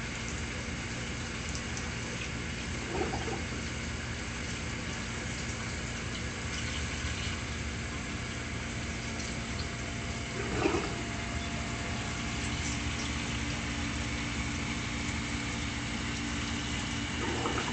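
Reef aquarium equipment running: a steady hum of pumps under an even rush of circulating water. A few short sounds stand out, the clearest about ten seconds in.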